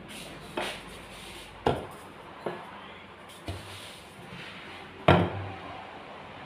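Five sharp knocks of kitchen things being put down on a counter, at uneven intervals, the loudest about five seconds in.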